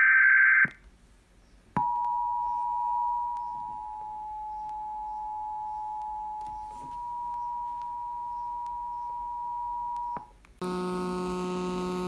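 Emergency Alert System SAME header, a harsh warbling data burst, ends under a second in. About a second later the EAS attention signal, two steady tones of about 853 and 960 Hz sounding together, holds for about eight seconds and cuts off. A steady electrical hum with a buzzy overtone starts near the end.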